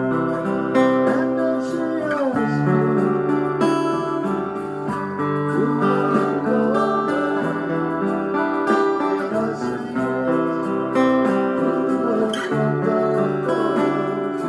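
Acoustic guitar played through a small Aroma AG-15A 15-watt acoustic guitar amp, with music streamed over Bluetooth playing through the same amp. Held chords and melody notes change every second or two, with some sliding notes.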